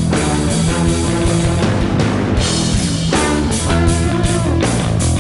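Loud hard rock music with electric guitar and a steady driving beat.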